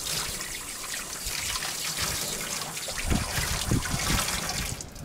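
Tap water running into a stainless steel sink as a trout is rinsed under it, with a few low knocks from handling in the basin in the second half. The water stops just before the end.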